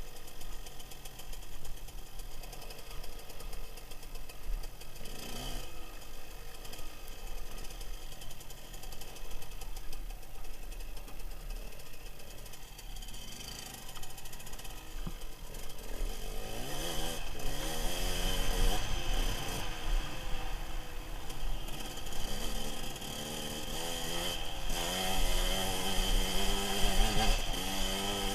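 Dirt bike engine running while riding over gravel, fairly subdued at first. From about halfway on it is louder, revving up and down repeatedly with rising and falling pitch as the bike climbs a hill.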